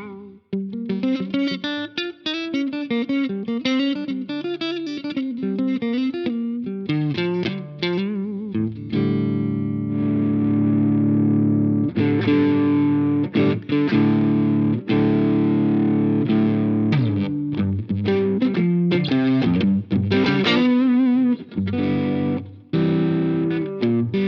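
Electric guitar played through a Jeds Peds Wasteman overdrive, a Tubescreamer-style pedal with a clean blend, giving a driven, distorted tone. A quick run of single notes gives way, about nine seconds in, to held chords that ring out.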